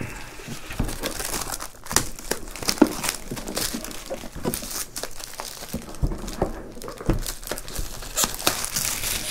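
Plastic shrink wrap being torn and crumpled off a cardboard box, irregular crinkling and crackling, with a few dull knocks as the box is handled.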